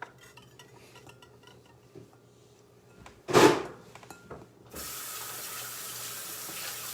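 Light clicking of a small whisk in a bowl, a brief loud noise about three seconds in, then a kitchen faucet running steadily from about five seconds in.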